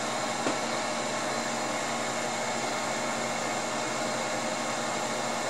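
Steady electrical hum with a rushing hiss from the running high-voltage tube-amplifier test bench, with a faint click about half a second in.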